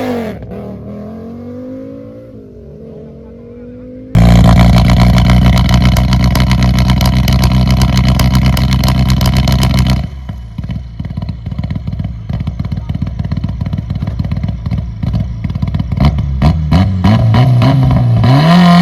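Rally car engines at racing revs: one car fades away with a falling note. About four seconds in, the sound switches abruptly to a very loud, steady high-revving engine. Near the middle it switches again to an engine popping and crackling off the throttle, and another car approaches and passes near the end.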